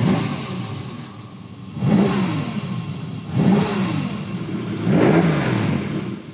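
Ferrari 365 GT 2+2's 4.4-litre V12 being blipped four times, about a second and a half apart. Each blip rises in pitch and falls back.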